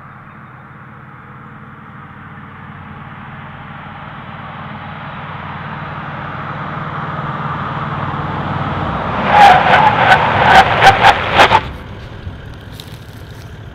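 Toyota LandCruiser 79 Series ute approaching at about 80 km/h, its tyre and engine noise rising as it nears, then braking hard in an emergency stop test: about nine seconds in the tyres squeal in a rapid series of six or seven loud chirps lasting about two seconds, after which the vehicle sits stopped.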